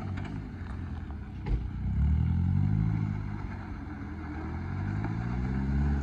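Suzuki Jimny Sierra's 1.5-litre four-cylinder petrol engine pulling the lifted 4x4 over dirt mounds, revving up about two seconds in and again near the end. A single thump about one and a half seconds in.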